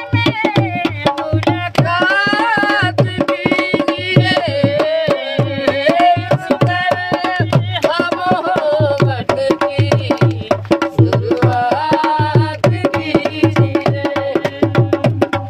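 A man and a woman singing a ghazal in a rustic village style, accompanied by a dholak played with the hands at a fast, steady beat.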